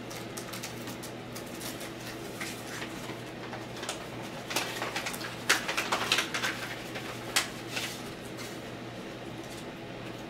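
Trading cards and paper envelopes being handled on a table: soft rustles and clicks over a steady low hum, with a cluster of louder paper crinkles in the middle.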